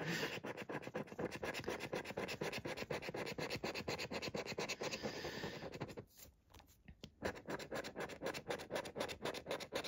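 Scratching the scratch-off coating from a paper scratchcard: quick, repeated scraping strokes, with a pause of about a second around six seconds in.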